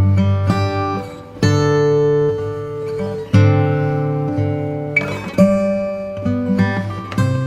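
Background music: an acoustic guitar picking notes and chords, each struck sharply and left to ring.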